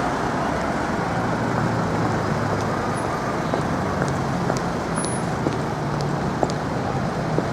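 Steady city road traffic: car and bus engines running and tyres on the road, with a low engine hum underneath.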